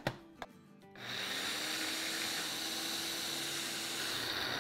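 Electric spice grinder running, grinding fennel seeds and sugar into powder: a steady whirring with a high whine that starts about a second in and stops near the end. A couple of clicks at the start.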